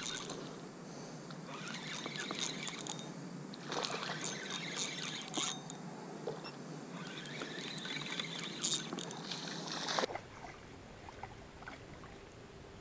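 River water sloshing and splashing close to the microphone, louder in two stretches about four and nine seconds in. About ten seconds in it drops suddenly to a quieter river background.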